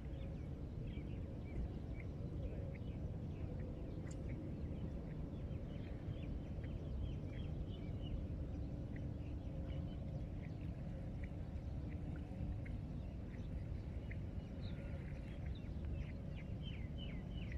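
Birds chirping in many short, scattered calls over a steady low rumble.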